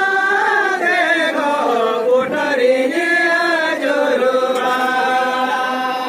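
A group of women singing a Santali folk song together in unison, unaccompanied, in long held notes that slide up and down in pitch.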